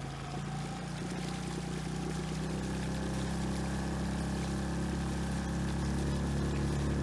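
Yamaha 6 hp outboard motor opened up, pushing a small inflatable skiff: its pitch climbs over the first few seconds and then holds steady as the boat comes up to speed, growing gradually louder, with water rushing along the hull.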